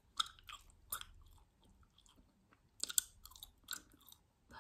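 Chewing gum close to the microphone: irregular sharp mouth clicks and smacks, loudest about three seconds in.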